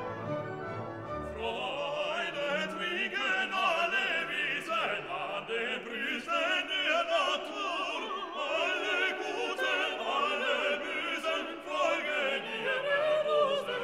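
Background music: an orchestra, joined about a second and a half in by an operatic singing voice with strong vibrato.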